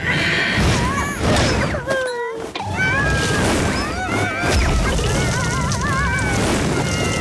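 Cartoon soundtrack: a loud crash-like impact at the start, then high squealing, warbling cartoon ant voices over music and a steady low rumble as the large egg rolls along the dirt.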